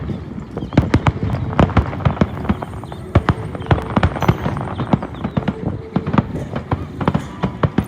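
Fireworks display: a rapid, irregular string of sharp bangs and crackles, several a second.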